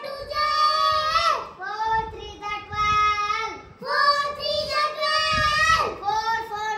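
Children chanting the four times table aloud in a singsong, long held notes with the pitch dropping at the end of each line, about three lines in all.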